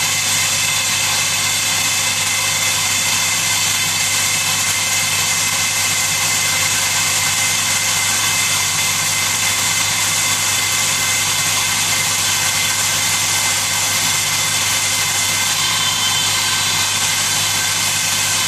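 Drilling rig machinery running steadily: a constant engine hum with several steady tones and a loud even hiss, unchanging throughout, with no hammer strokes heard.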